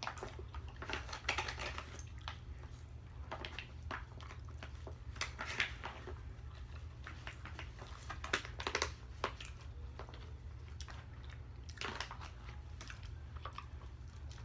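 Close-miked chewing, with wet mouth smacks and small clicks coming irregularly, over a steady low hum.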